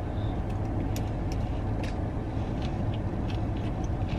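Steady low rumble of a car heard from inside the cabin, with faint scattered clicks of someone chewing a big bite of a sandwich.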